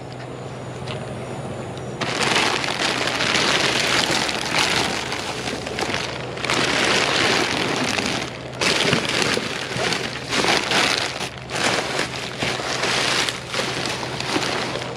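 Plastic sheeting, trash bags and cardboard crinkling and rustling as gloved hands dig through a dumpster. It is quieter for the first two seconds, then dense and continuous with a couple of brief lulls.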